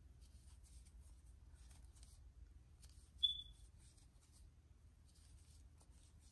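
Faint scratchy rustle of yarn drawn over a metal crochet hook as single crochet stitches are worked, coming in short clusters. About three seconds in, a brief high ping stands out as the loudest sound.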